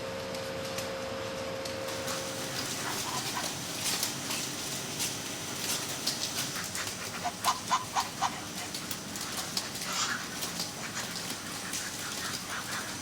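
Ducks calling in a farm shed, with a quick run of four or five short calls about seven seconds in, over scattered clicks and rattles. A steady hum stops about two seconds in.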